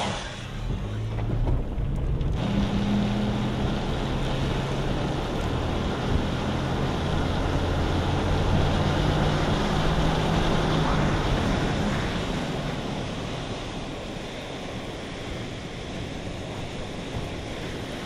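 A tornado's winds rushing through a grove of trees: a loud, steady, surf-like roar of wind that eases somewhat after about twelve seconds. A vehicle engine's low hum runs underneath for the first ten seconds or so, stepping up and down in pitch.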